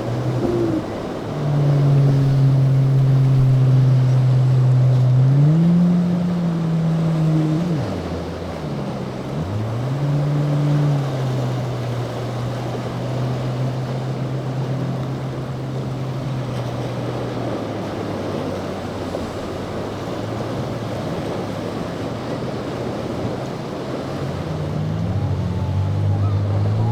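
Motorboat engine running, its pitch rising and falling as the throttle changes, over a wash of wind and surf.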